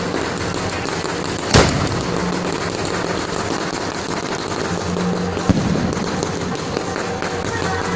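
Fireworks fountains shooting sparks skyward with a steady crackling hiss, broken by a loud bang about a second and a half in and a sharper, smaller bang about five and a half seconds in.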